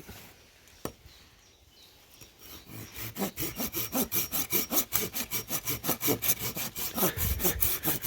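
Hand saw cutting through a green tree branch in quick, even back-and-forth strokes, starting about two and a half seconds in after a single knock.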